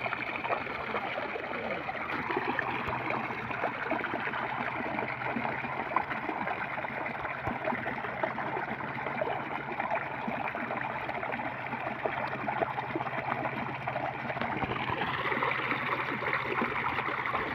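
Steady rushing, pattering water, with a faint low hum underneath.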